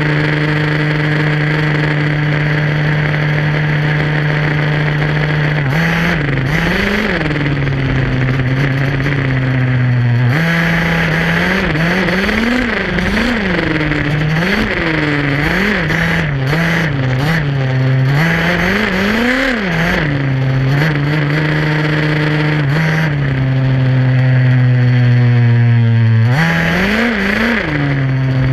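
Gas two-stroke engine of an HPI Baja SS RC buggy, heard from on board: it holds a steady high drone, then is revved up and down over and over for a stretch in the middle, settles back to a steady note, and is blipped twice more near the end.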